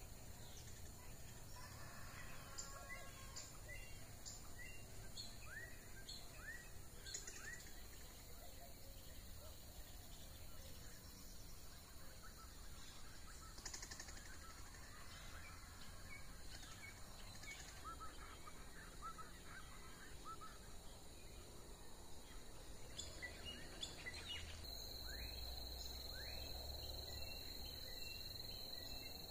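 Faint morning birdsong: many short chirping calls from several birds, over a steady high insect drone. About 25 s in, a louder steady insect buzz sets in.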